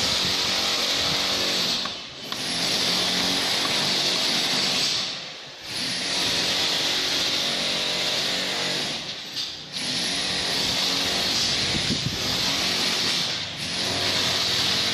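Steady loud whirring of a running machine with a low hum under it, easing off briefly about four times.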